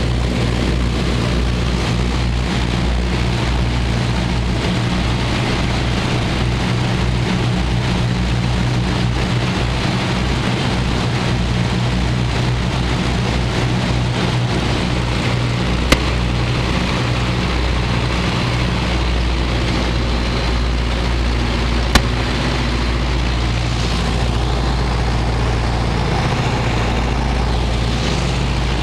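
Steady drone of a Junkers Ju 52's three radial engines, heard from inside the cabin. Two brief sharp clicks come past the middle, about six seconds apart.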